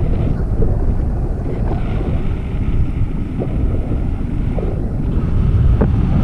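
Wind buffeting a handheld camera's microphone in paragliding flight: a loud, steady low rumble.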